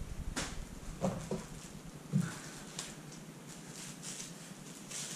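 A machete and its sheath handled on a tabletop: a few light knocks and taps in the first half, then soft rustling.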